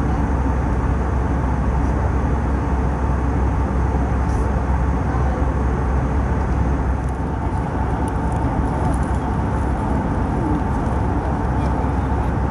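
Steady cabin noise inside an Airbus A319 in flight: a constant low drone of the CFM56 engines and airflow over the fuselage, heaviest at the low end.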